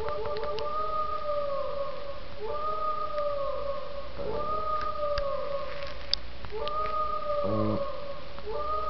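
A dog howling along to a played sound clip: long drawn-out howls repeating about every two seconds, each sagging in pitch as it ends. A deeper, wavering voice comes in briefly near the end.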